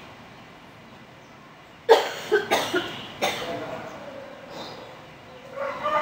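A person coughing several times in quick succession about two seconds in. Near the end a rooster starts crowing.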